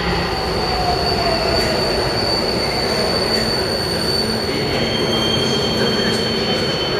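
Alstom Metropolis metro train of Budapest's M4 line running into an underground station and slowing, with a steady rumble of wheels and running gear and a whine that falls in pitch in the first couple of seconds as it brakes.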